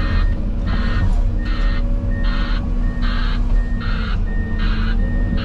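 Heavy-plant reversing alarm pulsing about every 0.8 seconds, each pulse a hiss-like rasp rather than a pure beep, over a diesel engine running steadily.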